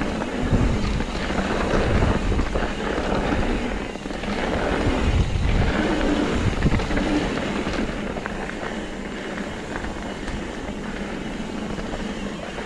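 Mountain bike rolling downhill on a packed dirt trail: tyre noise and bike rattle mixed with wind rushing over the microphone, louder for the first seven seconds or so, then easing off.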